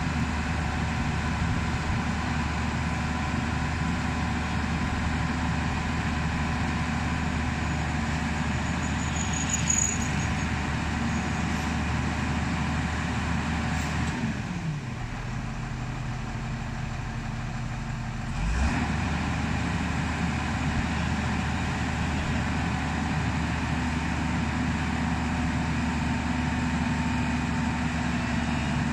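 JCB 205 tracked excavator's diesel engine running steadily as the machine loads itself onto a lowbed trailer. About fourteen seconds in, the engine note drops to a lower speed for some four seconds, then picks back up with a short thump.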